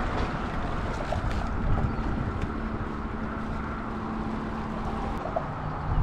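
Wind buffeting the microphone over the steady wash of inlet water against the jetty rocks.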